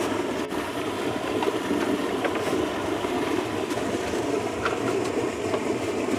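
Stream water rushing steadily among boulders, with a few faint knocks as bamboo poles are handled.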